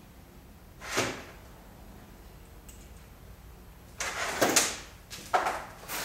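A few short bursts of mechanical tool noise as the nuts holding the water pump housing onto a Mercury outboard gear case are run down. There is one burst about a second in, then several close together from about four seconds on.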